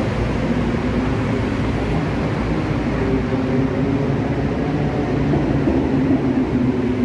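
Steady engine hum and road-traffic noise from vehicles waiting at and passing near the closed level crossing, with the engine tone growing slightly louder toward the end.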